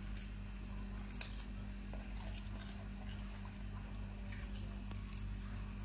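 Baby monkey chewing carrot: small, irregular crunching clicks over a steady low hum.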